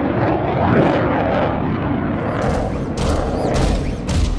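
Sound-effect jet engine roaring on afterburner. From about halfway it gives way to four sharp, heavy clanking strokes about half a second apart.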